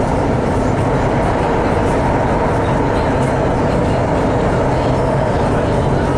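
Santiago Metro Line 3 train running through a tunnel, heard from inside the car: a steady, loud rumble of wheels and running gear.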